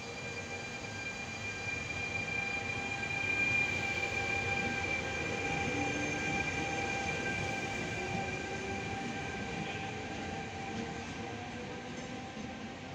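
A Trenitalia E.464 electric locomotive pushing a regional train past at low speed. A steady whine of several tones rides over the rumble of the wheels. It is loudest as the locomotive passes, about four to six seconds in, then fades slowly as the train moves away.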